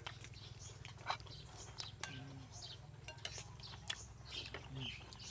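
Spoons clinking and scraping on ceramic plates and bowls, with chewing, as several people eat a meal. These are scattered, irregular small clicks, a sharper one about a second in.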